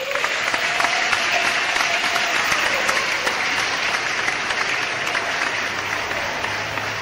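Applause, a dense crackle of many hands clapping that starts suddenly.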